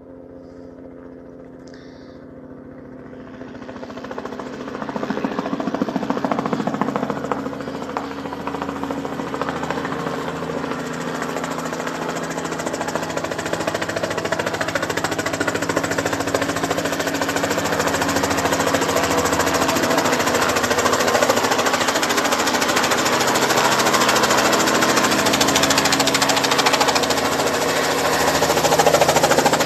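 Small helicopter's rotor and engine: a fast, steady rotor beat over an engine hum. It is faint at first, then grows much louder from about four seconds in and keeps building as the helicopter approaches and comes down to land.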